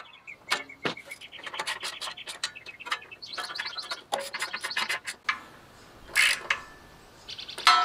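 Hand tools working on a small riding-mower engine: sharp metal clicks, some in quick regular runs, with scraping and rubbing in between.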